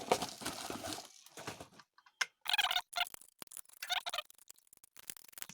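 Screws being turned out of a plastic TV tuner box case with a hand screwdriver: a scraping rasp at first, then scattered light clicks and short rasps.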